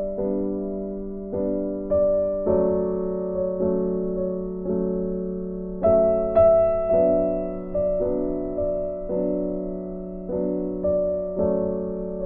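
Background music: slow piano notes and chords, each struck and left to fade.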